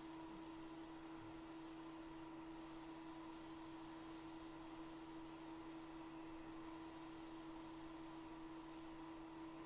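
Faint steady electrical hum, a single constant tone that does not change.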